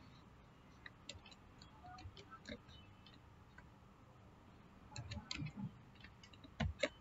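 Faint computer keyboard key presses: a few scattered clicks, then quick groups of keystrokes about five seconds in and again near the end.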